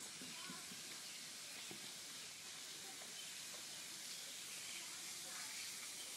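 Steady faint background hiss, with no clear sound from the puppy.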